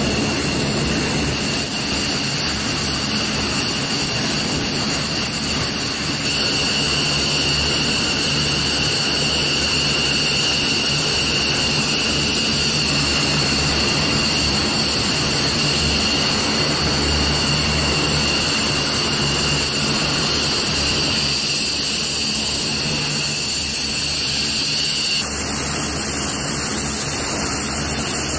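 An F-15C Eagle's twin Pratt & Whitney F100 turbofan engines running on the ground at idle, with the engines kept turning through a hot refuel: a steady jet roar with a high whine of two held tones. The whine cuts off suddenly near the end, leaving the roar.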